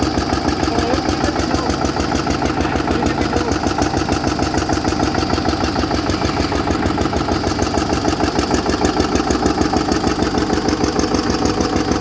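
Eicher 222 ES single-cylinder, air-cooled 22 hp diesel engine running steadily, a fast, even beat of firing strokes with no misses.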